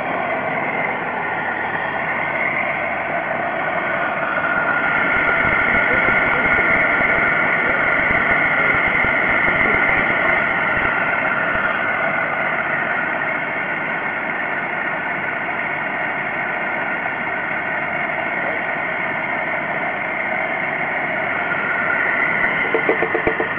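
Freshly built supercharged 3800 V6 of a Pontiac Grand Prix GTP idling steadily under the open hood, with a steady high whine over the idle that grows a little louder for several seconds in the first half.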